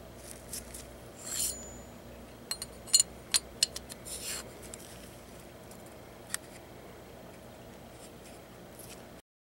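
Steel bolt and receiver of a .22 LR bolt-action rifle being handled: metal sliding with a scrape, then a quick run of about six sharp metallic clicks and a lone click later on. The sound cuts off near the end.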